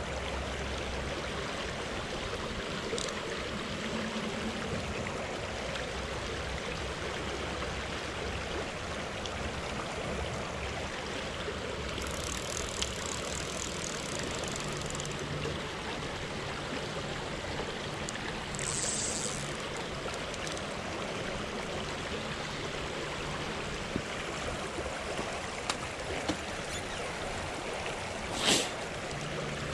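Creek water running steadily over a shallow gravel riffle. A short, sharp knock stands out about a second before the end, with a few fainter high ticks earlier on.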